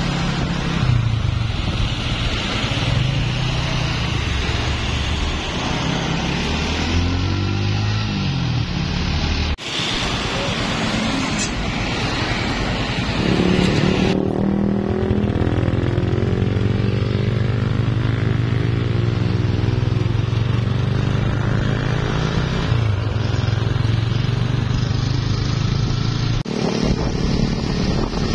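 Truck engines running and pulling away in passing street traffic, their pitch rising and falling as they accelerate, over road and tyre noise. The sound jumps abruptly about a third of the way in, around halfway and near the end where clips are joined.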